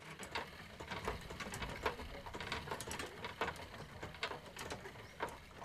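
Quiet, irregular small splashes and clicks of a hand stirring silkworm cocoons floating in a basin of water, over a low background hum.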